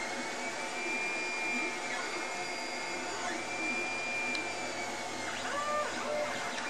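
Ender-2 FDM 3D printer printing. Its stepper motors whine at high pitches that slide up and down as the print head and bed start and stop, over a steady machine whir.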